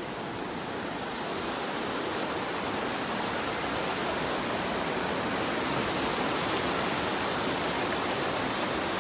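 Fast-flowing water rushing through a stone channel: a steady, even wash of noise that swells a little over the first second or two and then holds.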